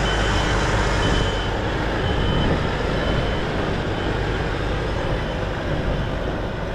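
A vehicle engine running steadily with a deep rumble. A high beep sounds about once a second over the first four seconds, growing fainter each time.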